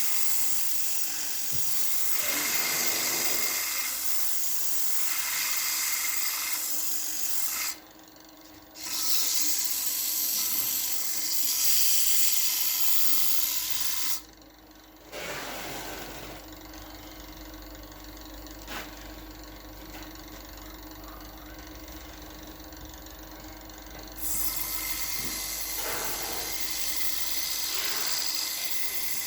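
Powermatic PM2014 wood lathe running with a steady hum while a spinning wooden plate is worked, a hissing rub of tool or abrasive on the wood. The sound cuts out briefly twice and is quieter for a stretch in the middle before the rubbing comes back louder near the end.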